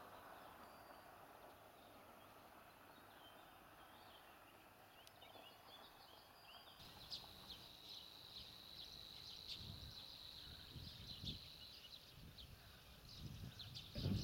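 Faint outdoor ambience with a soft hiss. About halfway through, high, rapid chirping sets in and keeps going, with a few soft low thumps beneath it.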